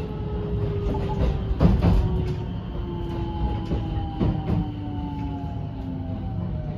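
Onboard running sound of a JR West 223 series 2000 electric train, heard inside motor car MoHa 222-3019: the Toshiba IGBT inverter and traction motors give a whine that falls slowly in pitch over a low rumble, with wheels clacking over rail joints now and then.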